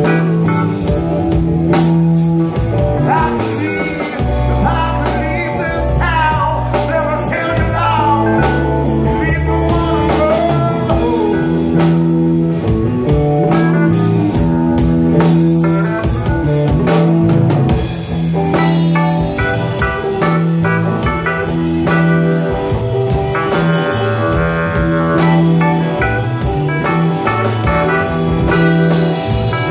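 A live blues-rock band playing: drum kit, electric guitars and keyboard. A singer's voice runs over the band for roughly the first ten seconds, then the band carries on without vocals.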